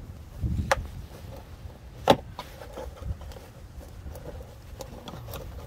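Flat-blade screwdriver prying plastic retaining clips out of a car's wheel-arch liner: two sharp plastic clicks, one under a second in and one about two seconds in, with fainter ticks and scraping after.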